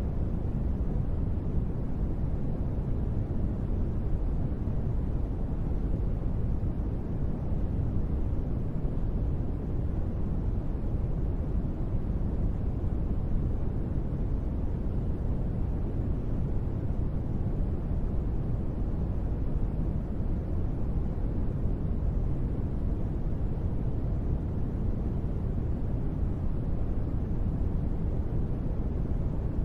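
Steady sleep noise, sold as white noise, heard as a deep, even rush weighted to the low end with little high hiss. It holds constant without any change.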